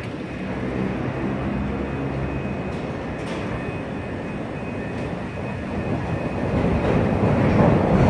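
Chicago 'L' elevated train running on the overhead steel tracks, a steady low hum that grows louder over the last two seconds.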